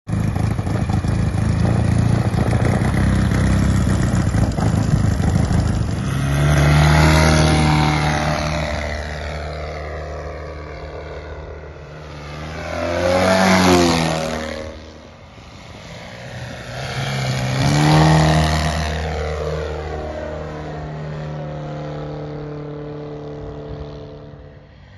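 A UMS four-stroke two-cylinder boxer engine of about 200cc turning the propeller of a large radio-controlled model airplane. It runs at high power close by, then the plane makes three loud passes, each swelling up and dropping in pitch as it goes by.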